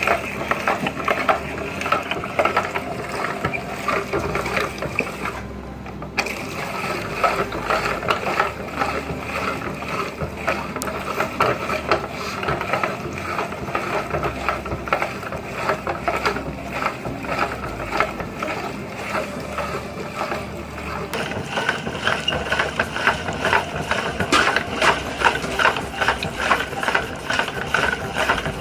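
Electric meat grinder crunching as it grinds ice cream cones: a dense, steady crackling of breaking wafer over the motor and auger, growing busier and louder in the last third.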